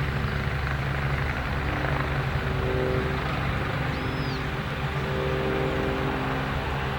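Agusta AW109SP helicopter's engines and rotor running at a steady level.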